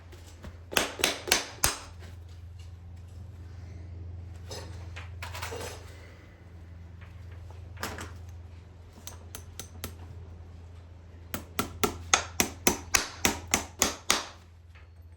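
Farrier's hammer striking metal in quick runs of sharp taps: four near the start, a single blow around the middle, then about a dozen rapid taps, roughly four a second, near the end. A steady low hum runs underneath.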